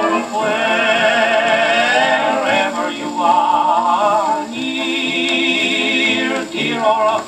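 1920s dance-band 78 rpm record playing on an acoustic phonograph: a melody line with vibrato over the band, pausing briefly at about two and a half seconds before the next phrase.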